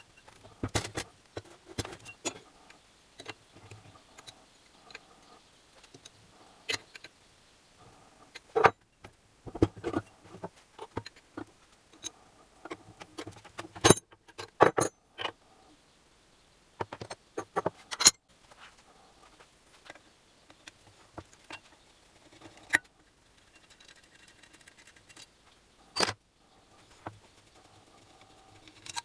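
Irregular metallic clinks and knocks of hand tools and small engine parts being handled during a scooter engine teardown, with a few sharper knocks among the lighter clicks.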